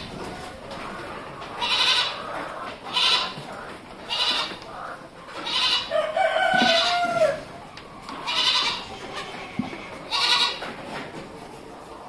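Sojat × Hyderabadi cross goat kids bleating: repeated short, high-pitched bleats, one every second or two.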